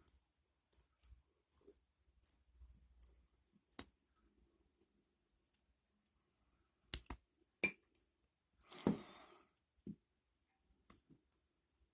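Number wheels of a Zone three-dial combination lock clicking as they are turned step by step while being decoded by feel for the gates. There are a couple of sharper clicks about seven seconds in and a short rustle of handling about nine seconds in.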